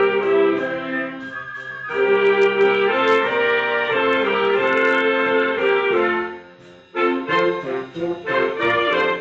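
Municipal concert wind band playing a Christmas carol: saxophones, clarinets, flutes and brass in full sustained chords. The band drops back briefly a little over a second in, then comes in again fuller. It pauses for a moment about two-thirds of the way through, then re-enters with short, detached notes.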